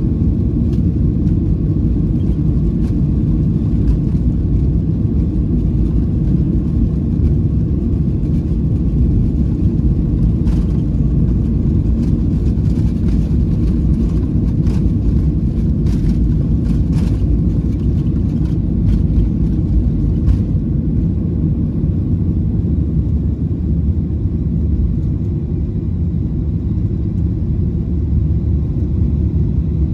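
Steady low rumble of a Boeing 737-700 heard inside the passenger cabin, the sound of its CFM56-7B jet engines running. A few faint ticks come through in the middle.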